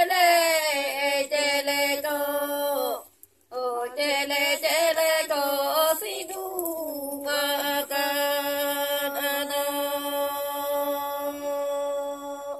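Singing in a chant-like melody with long held notes. There is a brief break about three seconds in, and a single note is held steady for about the last five seconds.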